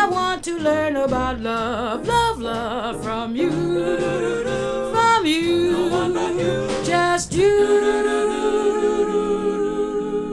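Jazz vocal recording: a woman's voice sings a run of wavering, shifting notes, then about seven and a half seconds in settles onto one long held final note with vibrato, over light accompaniment.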